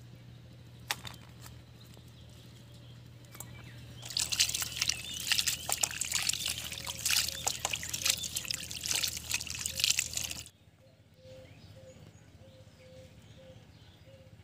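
Hands washing a bowlful of small mourala fish in water in a steel bowl: dense splashing and sloshing that starts about four seconds in and stops suddenly about ten and a half seconds in. Before it, only a few light taps.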